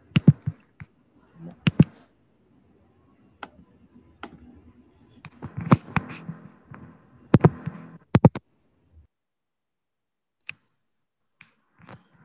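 Scattered sharp clicks of a computer being worked, about a dozen spread unevenly with several in quick pairs, over a faint background hiss.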